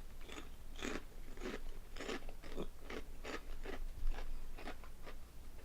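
Someone chewing crunchy Honey Tong Tong ribbed potato snacks, with crisp crunches about three times a second.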